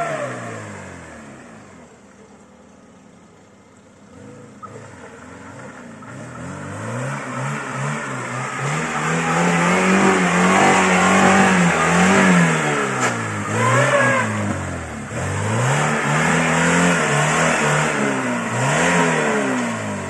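Lada Niva's four-cylinder engine being revved hard again and again, its pitch climbing and dropping in repeated surges, the loudest about halfway through.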